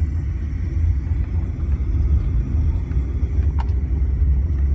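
Steady low rumble of a moving vehicle, with a single brief click about three and a half seconds in.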